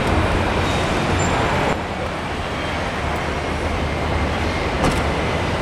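Steady road traffic noise with a low rumble, dropping a little in level about two seconds in, with a single short knock near the end.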